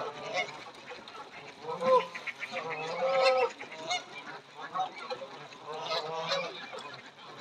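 A flock of Canada geese honking, many short calls overlapping, the loudest about two and three seconds in.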